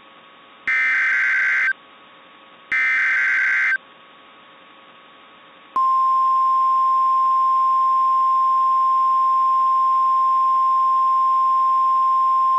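NOAA Weather Radio alert signalling: the last two of three SAME header data bursts, each about a second long, a second apart. About two seconds of low hiss follow, then the steady 1050 Hz warning alarm tone starts and holds.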